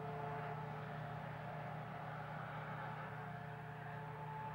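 Semi-trailer truck on the highway some way off: a steady, even engine hum with tyre noise.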